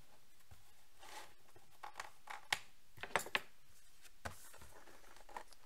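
Quiet hand handling of trading cards at a table: soft rustling and a few light, sharp clicks and taps, three of them close together about two and a half to three and a half seconds in.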